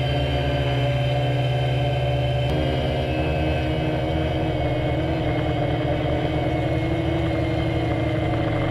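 Quadcopter's four Avroto 3515 400 kV brushless motors and propellers running in flight, a steady multi-tone drone heard close up from the onboard camera. It shifts in pitch about two and a half seconds in.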